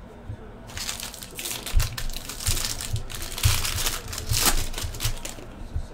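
Foil wrapper of a 2015 Bowman Draft trading-card pack being torn open and crinkled by hand, starting about a second in and stopping shortly before the end, with soft knocks from handling.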